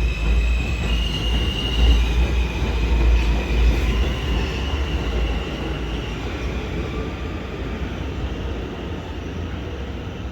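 New York City subway train running through the station, a heavy rumble with high-pitched wheel squeal whose pitch shifts. The sound eases off over the second half.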